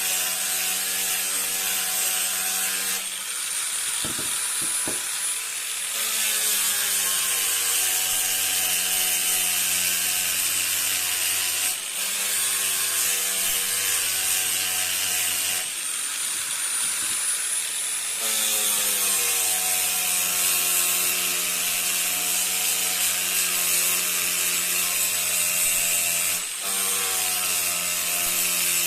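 An electric woodworking power tool runs steadily with a motor hum and a high whine. Twice, about 3 seconds in and again about 16 seconds in, its sound turns rougher and noisier for a few seconds as it works the wood, and the motor pitch shifts as it comes back out of the cut.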